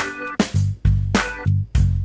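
Background music with a steady beat: a sustained bass line under regular sharp drum hits.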